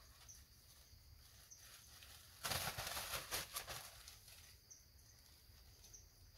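Insects trilling steadily in the background, with faint repeating chirps. About two and a half seconds in, a louder noisy burst with several crackles lasts for over a second.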